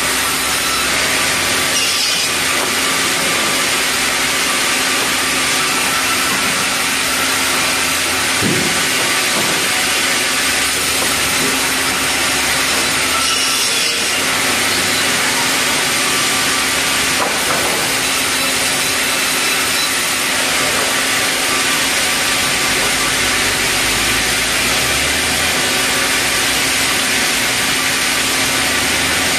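Large sawmill band saw running and ripping red meranti timber: a steady, loud, rasping cut over a constant hum of the machine.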